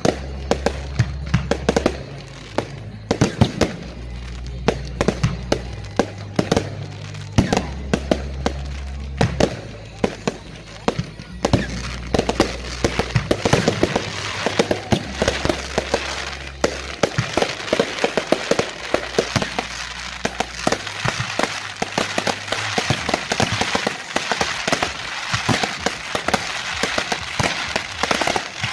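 Fireworks bursting in rapid succession, many sharp bangs, over music with a steady bass line that stops about three quarters of the way through. About halfway in, a dense crackling sets in and fills the rest, with the bangs continuing through it.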